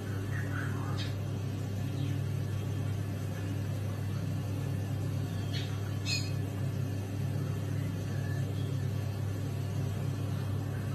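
A steady low hum throughout, with a few short, high chirps from an otter being scrubbed: about a second in, twice around the middle, and again at the end.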